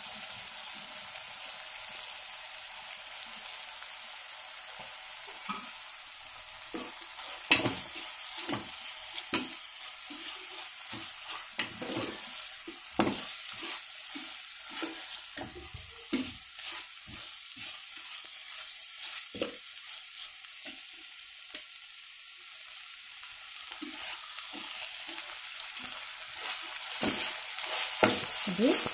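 Sliced onions sizzling as they fry in oil in a pot, with a spoon scraping and knocking against the pot many times as they are stirred.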